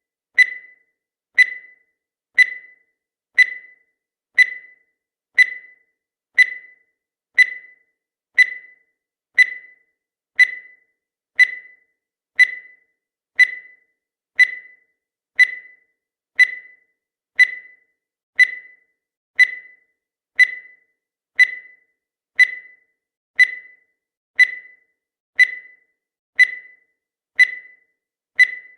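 Countdown timer sound effect: a short, high-pitched beep once every second, each dying away quickly, marking the seconds as they count down.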